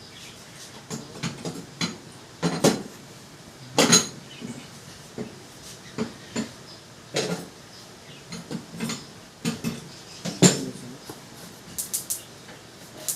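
Irregular metal clanks and clinks as gas cooking stove burner parts are handled during a repair, with two loudest clanks about four and ten seconds in.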